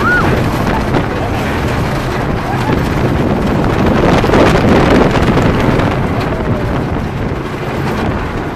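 Wooden roller coaster train running along its track, with wind on the microphone; the noise swells about four to five seconds in.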